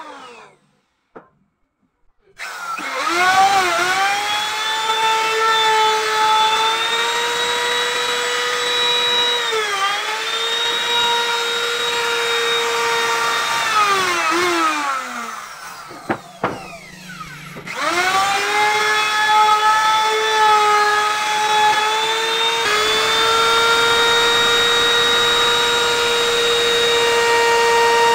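Electric wood router starting about two seconds in, its motor whine rising to a steady pitch, dipping briefly, then winding down; it starts again near the middle and runs steadily while cutting along the wooden frame.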